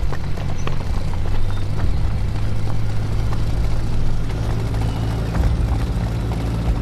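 Engines of a motor convoy (a motorcycle with sidecar, a car and a troop truck) running together in a steady low drone as the vehicles drive off.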